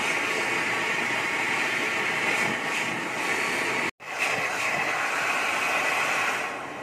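Gas torch flame burning with a steady hiss while melting gold. It cuts out abruptly for an instant just before four seconds in, then carries on and drops quieter near the end.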